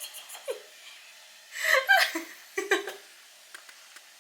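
A young child giggling and laughing in short, high-pitched bursts. The loudest burst comes a little before halfway through, then the laughter fades.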